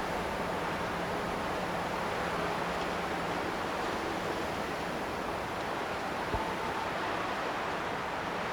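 Steady wind blowing through a forest, an even rushing noise with no gusts standing out. A brief low knock about six seconds in.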